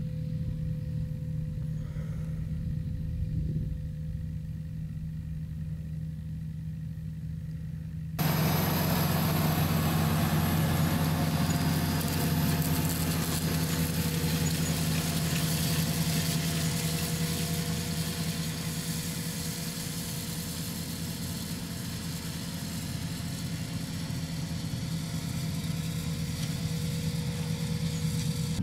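John Deere 8320R tractor's diesel engine running steadily under load while pulling a planter, heard from a distance at first. About eight seconds in it cuts abruptly to a much louder, closer sound of the engine with a hiss of soil and machinery over it.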